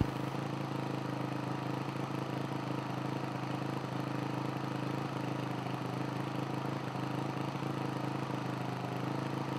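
2009 Honda CRF450R's single-cylinder four-stroke engine idling steadily.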